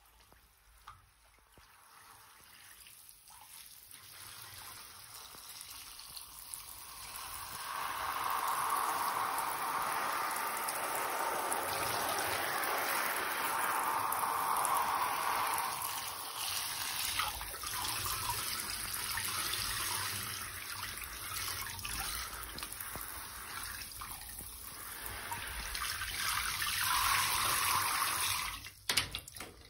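Handheld shower head spraying water onto wet leather pants and into a partly filled bathtub: a running-water hiss that grows louder over the first several seconds and then goes on, waxing and waning as the spray moves. A few knocks near the end.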